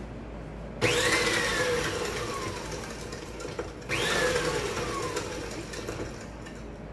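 Electric stand mixer beating eggs and sugar, switched on in two short bursts about three seconds apart; each burst starts abruptly, then its motor whine drops in pitch and fades.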